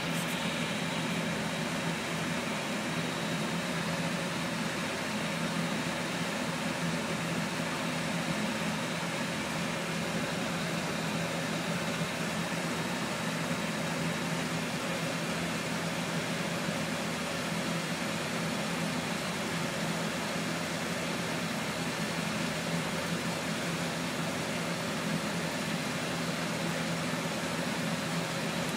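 Lampworking torch flame burning steadily with a constant rushing hiss, with a low hum underneath, while glass is heated in the flame.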